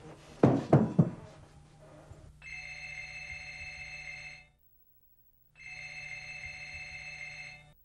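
Three heavy thumps near the start, then a wall-mounted telephone ringing in two steady bursts of about two seconds each, with a pause between them.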